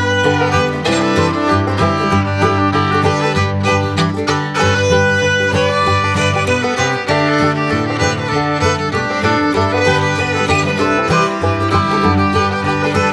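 Background music: an upbeat country-bluegrass tune with fiddle over strummed guitar and a bouncing bass line.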